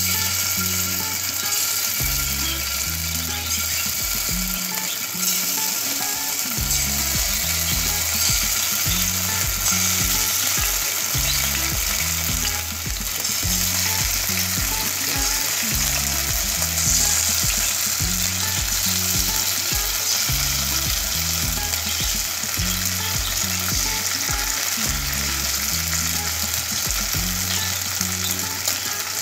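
Marinated chicken pieces sizzling steadily in hot oil in a nonstick frying pan as more pieces are laid in one after another.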